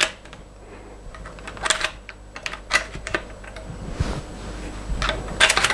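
Sharp clicks and small rattles of plastic and steel as 3D-printed dummy cartridges are pushed into the tube magazine of a Vetterli rifle through its side loading gate. The clicks come in a few quick bunches, the loudest just before the end.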